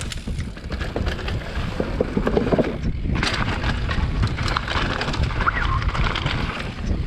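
Downhill mountain bike rolling fast over a dirt and rock forest trail: wind buffeting the camera microphone, tyres crunching on dirt and gravel, and the bike rattling and knocking over roots and stones. The rushing, crunching noise grows brighter about three seconds in.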